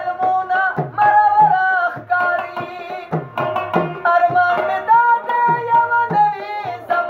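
Pashto ghazal: a man singing long, wavering held notes over tabla played in a steady rhythm, the bass drum's strokes sliding down in pitch.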